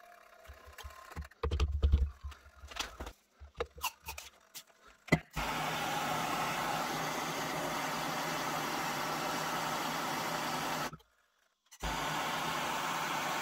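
Handheld gas blowtorch burning with a steady hiss, heating a rust-seized pistol barrel to free it. Before it comes on, about five seconds in, there are scattered clicks and knocks of handling; the hiss breaks off abruptly for about a second near the end, then resumes.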